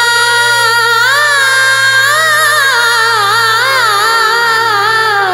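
Woman singing a naat, drawing out one long ornamented note whose pitch wavers and slides, over a steady low drone.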